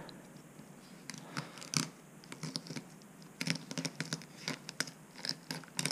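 Fillet knife cutting into a whitefish along the backbone: faint scattered scrapes and crackles as the blade works through the scales and flesh, coming thicker for a second or so past the middle.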